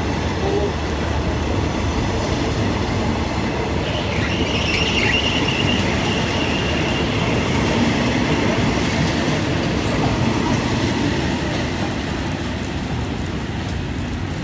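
Passenger train coaches rolling past at close range, their wheels running over the rails in a steady loud noise. About four seconds in a high, steady metallic squeal rises over it and holds for about three seconds.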